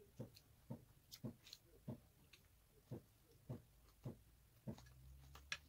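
Faint chewing of fried chicken, a soft even rhythm of about two chews a second, with a few light clicks.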